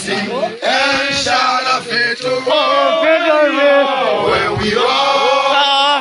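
A group of men's voices singing a chant together, a mourners' song at a funeral procession.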